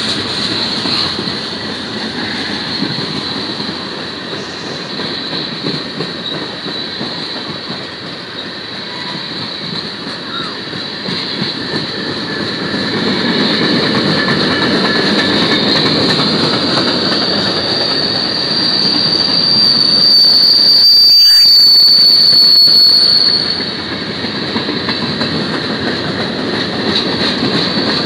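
Freight cars of a manifest freight train rolling past at close range, a steady rumble of steel wheels on rail. A high-pitched wheel squeal runs over it, swelling to its loudest about twenty seconds in and dropping away sharply a few seconds later.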